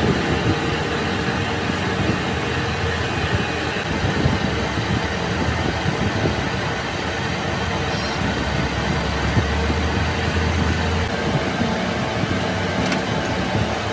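Metal lathe running steadily, its chuck spinning while a lathe tool turns down the end of a steel camshaft: an even machine hum with cutting noise.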